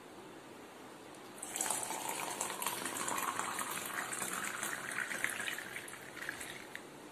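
Hot water poured from a kettle into a ceramic mug. The splashing stream starts about a second and a half in and rises in pitch as the mug fills, then stops near the end.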